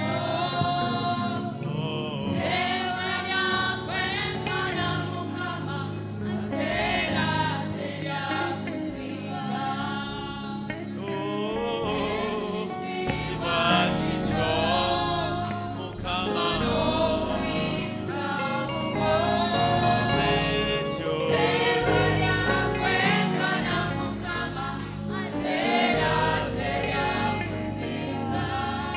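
Gospel worship music: a group of voices singing with a band, over a steady bass line.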